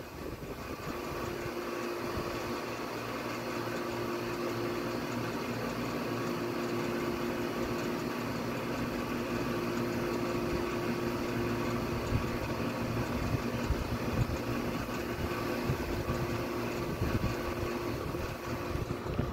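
Steady machine hum with a constant mid-pitched tone running under it, unchanging throughout.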